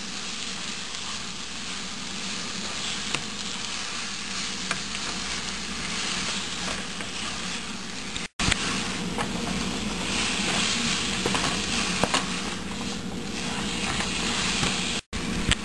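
Ground chicken sizzling steadily as it fries in oil with onion, ginger and garlic in a pan, while a spatula stirs it with occasional light clicks and scrapes. The sound cuts out for an instant twice, about eight seconds in and near the end.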